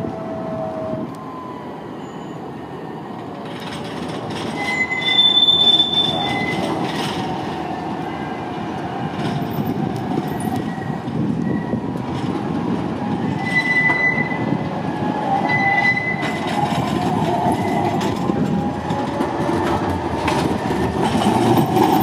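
Trams rolling through curved track, their wheels squealing against the rails in short high-pitched tones that come and go over a steady rumble, loudest about five seconds in.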